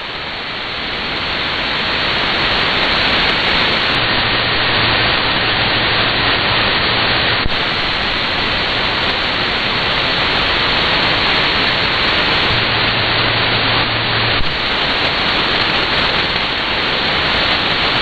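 Shortwave receiver static: steady hiss of band noise on 9920 kHz in SAM mode, with the broadcast signal faded out, swelling up over the first two seconds. A faint low hum comes in twice, and there are two faint clicks.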